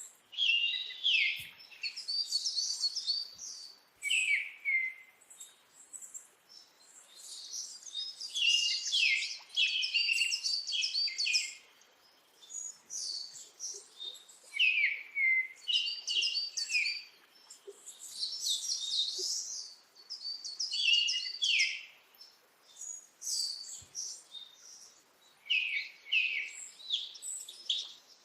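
Small birds chirping and singing in quick, high phrases that come in short spells with brief pauses between them.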